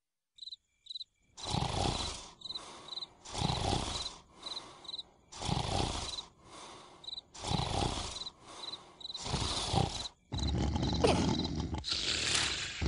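Crickets chirping in a steady high pulse about twice a second, under loud rasping bursts that come back in pairs about every two seconds, a strong one then a weaker one. The bursts run together into a continuous rumble near the end.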